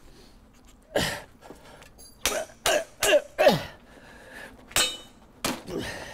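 A hammer strikes a Litelok Gold flexible bike lock about seven times in quick, uneven succession, each blow with a short grunt of effort. The lock has been chilled with freeze spray in an attempt to shatter it.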